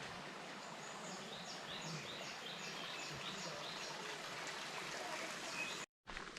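Steady rush of a mountain stream, with a bird giving a quick series of short, high chirps, each sliding down in pitch, for a few seconds in the middle.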